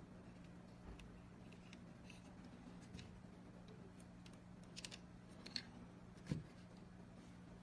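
Quiet handling noise: a few faint clicks and taps as a small gauge and a brass temperature sensor are picked up and moved about on a tabletop, with a soft knock about six seconds in. A faint steady low hum runs underneath.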